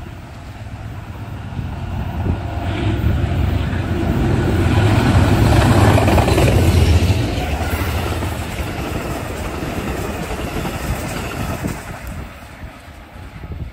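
Passenger train passing, its rumble and wheel noise building to a peak about six seconds in, then fading.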